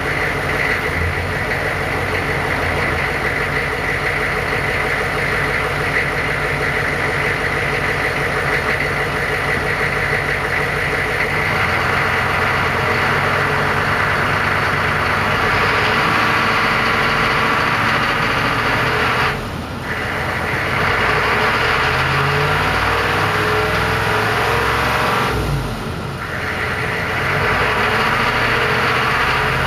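A 1999 Chevy Suburban's 6.5 L turbo-diesel V8 running through its stock factory exhaust. It idles at first, then runs at higher revs, with two brief drops in the engine note near the end.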